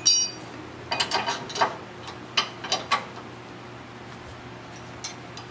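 Steel tow-bar bracket clinking and knocking against the car's bolted-on mounting bracket as it is fitted by hand. A short ringing metal clink comes at the start, then clusters of sharp clinks about a second in and again around two and a half to three seconds in, and a single knock near the end.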